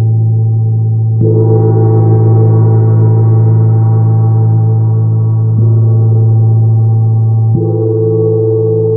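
Large gong struck three times with a padded mallet, each stroke renewing a continuous deep ringing hum with many overtones that sustains between strokes.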